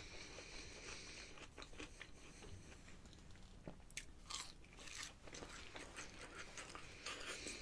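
Faint crunching and chewing as a person bites into and eats spicy seasoned fries, with short crisp crackles scattered through.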